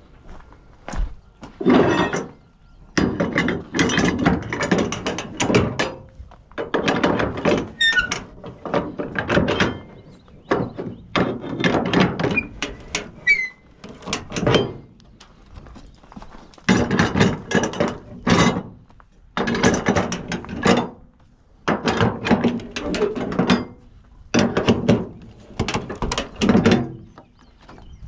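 Flatbed trailer strap winches being cranked tight with a winch bar, the pawl ratcheting in about a dozen bursts of clicks a second or two long with short pauses between, tensioning the cargo straps over a lumber load.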